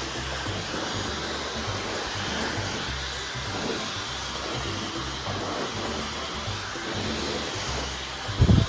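Dyson Supersonic hair dryer blowing steadily, over background music with a bass line; a short loud thump near the end.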